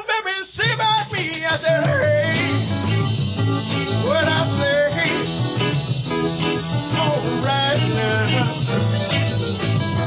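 A man singing a bluesy soul song over instrumental backing, his voice rising and falling over a steady band accompaniment.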